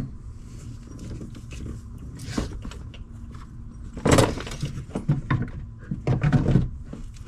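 Clinks, rattles and knocks of hands and metal working at a new AGM car battery in an engine bay. The clatter comes in clusters, sharpest about four seconds in and again just before the end.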